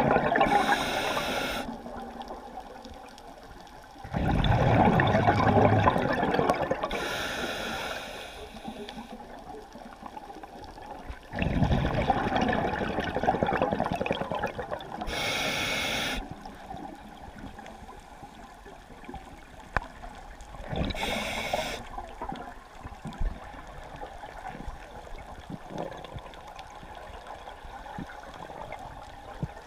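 Scuba diver breathing through a regulator underwater: short hissing inhalations through the demand valve and gurgling bursts of exhaled bubbles, about four breaths, the later ones fainter.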